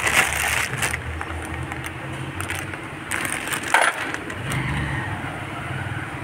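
A few sharp clicks and knocks of a small part being handled, over a steady low hum like a car engine running in the workshop.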